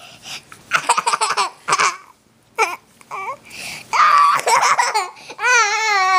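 A toddler laughing in short bursts of giggles while being tickled. Near the end comes one long, drawn-out squeal that slowly falls in pitch.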